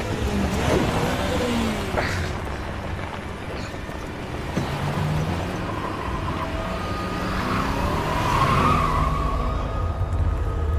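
Car sound effects, with the noise of a car's engine and tyres, a couple of sharp knocks, and a swell of noise a little past the middle.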